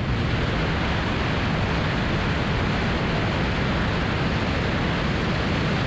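Steady rush of wind and water as a bass boat runs fast across the lake, with wind buffeting the microphone. The noise holds even throughout, without a clear engine note.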